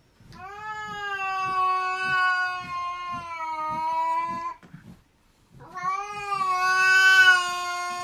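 A grey short-haired cat yowling: two long, drawn-out wails held at a nearly steady pitch. The first lasts about four seconds, and the second starts after a short break and lasts about three.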